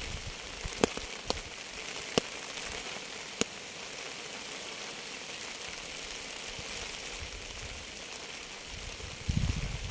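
Steady rain falling on a surface, an even hiss with four sharper drop taps in the first few seconds. A short low rumble near the end.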